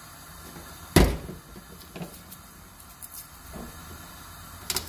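Kitchen handling knocks: one loud, deep knock about a second in, then a few lighter knocks and clicks, over the faint steady hiss of a gas burner.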